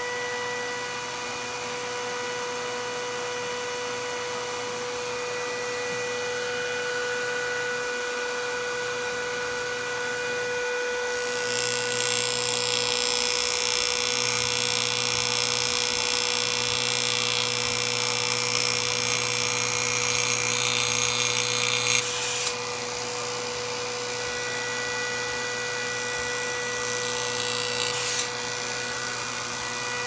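A homemade high-voltage hairpin rig drives a microwave oven's AC fan motor, giving a steady electrical hum and whine. About eleven seconds in, a loud hissing buzz joins and cuts off sharply near 22 seconds, then returns more weakly until it stops abruptly near 28 seconds.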